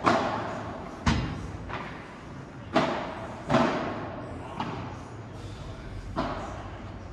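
Padel ball knocks during a rally: about six sharp hits off the rackets and the court, at uneven intervals, each ringing on in the echoing hall.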